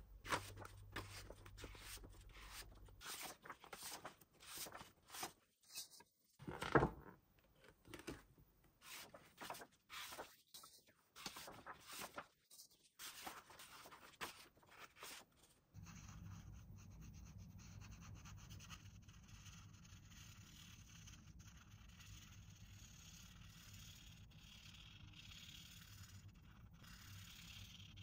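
Faint handling of a toy and its packaging: scattered rubbing, scraping and small clicks, with a few louder knocks about six to seven seconds in. After about sixteen seconds only a steady low hum with faint hiss remains.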